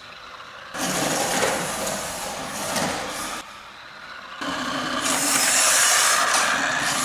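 Rastar 1/14 Ferrari RC car driving in bursts, its electric motor and tyres making a hissing whir that starts and stops sharply as the throttle is applied and released: one run of about two and a half seconds starting about a second in, then a longer one from about four and a half seconds in.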